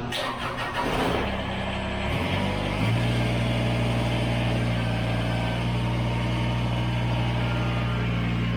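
Subcompact tractor engine starting: a rough burst of noise, then settling within a few seconds into a steady, even idle.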